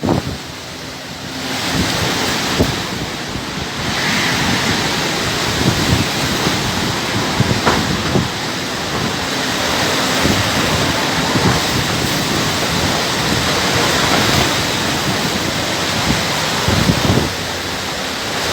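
Hurricane wind and water: a loud, steady rushing roar with wind buffeting the microphone and a few short knocks.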